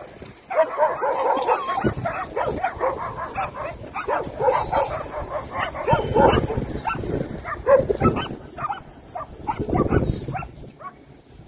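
A pack of stray dogs barking and yelping in a rapid, overlapping volley, which dies away about ten seconds in.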